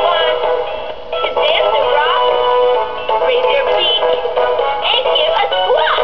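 FurReal Friends Squawkers McCaw animatronic macaw toy singing through its built-in speaker: a synthesized voice in short melodic phrases with rising and falling whistle-like glides.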